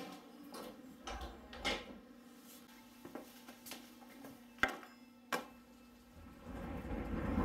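Scattered soft knocks and clicks of something being handled, with two sharp clicks close together a little before five seconds in. Near the end a low rumble and the hiss of rain start to build.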